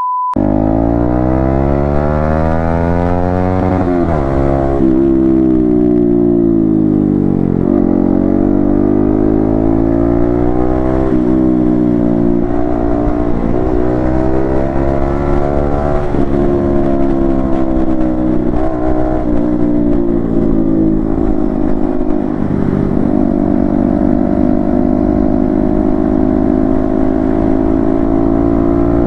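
Yamaha MT-15's single-cylinder engine through an Akrapovic exhaust, accelerating up through the gears. The pitch climbs and then drops at each shift, with a run of shifts over the first twenty seconds. It then settles into a steady cruise with small throttle changes.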